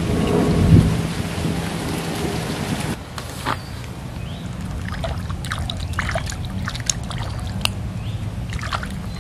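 Low wind rumble on the microphone for about the first three seconds, then a scatter of light splashes and rustles as a snakehead is slipped back into duckweed-covered water at the bank.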